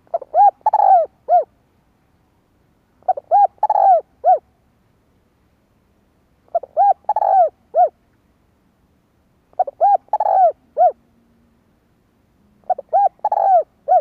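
Spotted dove cooing: five phrases about three seconds apart, each a quick run of several coos that rise and fall in pitch, ending on a note set slightly apart.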